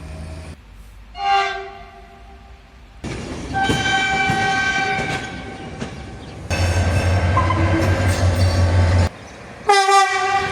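Train horns sounding: a short blast about a second in, a long sustained blast from about three seconds in over the rumble of a passing train, and another short blast near the end.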